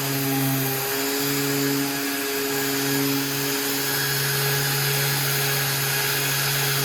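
An electric power tool's motor runs steadily with a constant hum and a high hiss, dipping briefly a few times as if under changing load.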